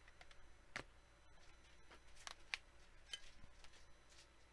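Faint, scattered clicks and taps of plastic card holders being lifted off display easels and set down, about half a dozen in all.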